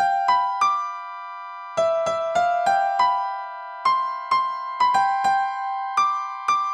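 Background music: a simple melody of single piano notes, about two a second, each struck and left to ring and fade.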